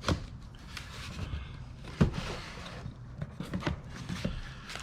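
Objects being handled while a box is unpacked: a sharp knock at the start and another about two seconds in, then lighter clicks and taps, with rubbing and rustling between.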